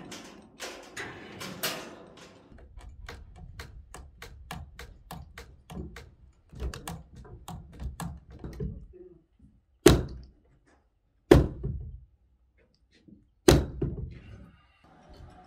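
A run of quick, light clicks and taps, then three loud, heavy knocks on the log timbers about one and a half to two seconds apart, each with a deep thud.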